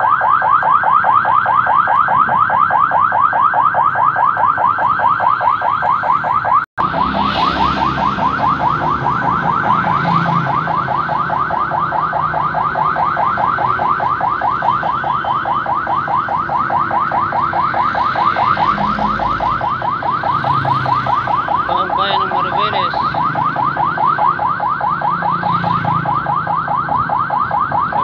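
Vehicle siren in a fast yelp, its pitch sweeping up and down many times a second without pause, with a momentary break about seven seconds in.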